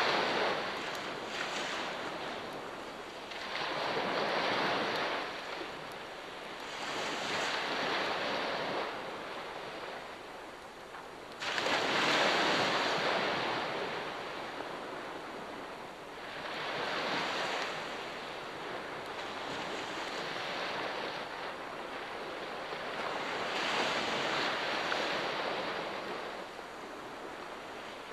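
Ocean waves breaking and washing up the shore, the surf swelling and fading every four seconds or so, with one sharper, louder crash about eleven seconds in.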